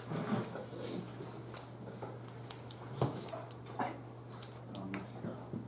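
Scattered sharp clicks of a computer keyboard and mouse as an equation is typed into graphing software, over a steady low electrical hum and faint murmurs.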